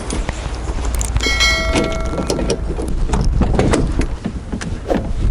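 Metal clanking and knocking of gearbox parts being handled over a low rumble. About a second in, a struck metal part rings clearly for about a second and a half.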